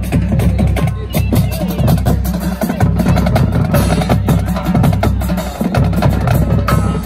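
Marching band drums and percussion playing a driving beat, with bass drum strokes under a steady run of sharp hits.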